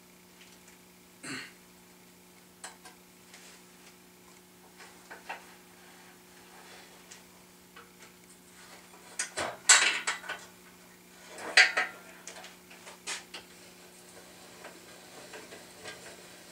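Metal drill press parts and hand tools clinking and clanking as they are handled and fitted during assembly, with scattered light clicks and two loud clanks roughly two seconds apart in the second half. A faint steady hum runs underneath.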